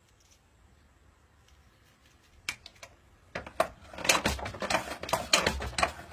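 Near quiet, then two single clicks about two and a half seconds in, followed by a fast, irregular run of sharp clicks and clattering knocks.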